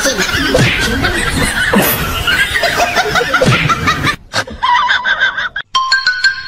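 People laughing and snickering for about four seconds, cut off suddenly, followed by a few held musical tones near the end.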